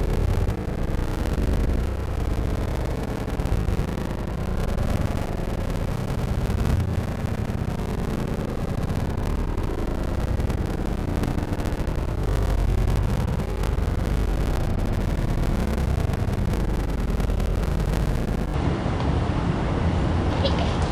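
Steady low rumble of outdoor background noise, strongest in the bass and unsteady from moment to moment, with no single clear source.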